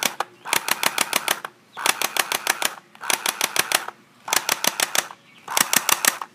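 Clear-bodied toy airsoft rifle firing on full auto: five short bursts of rapid clicking shots, about ten a second, with brief pauses between bursts.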